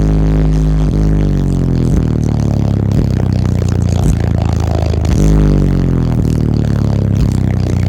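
Bass-heavy demo track played very loud through a car audio system of eight Soundqubed HDX 15-inch subwoofers on eight Soundqubed 4500 amplifiers. Long, deep bass notes hold and then glide in pitch over a steady beat.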